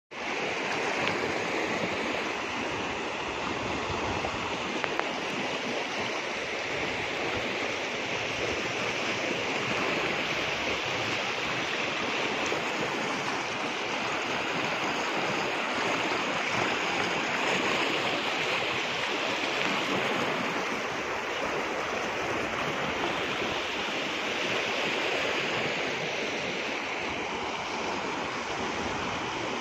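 Muddy river floodwater rushing and churning against a concrete embankment edge: a steady, unbroken rush of water.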